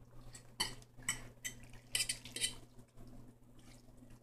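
Kitchen utensil clinking against a frying pan: a few light clicks and clatters in the first two and a half seconds, over a low steady hum.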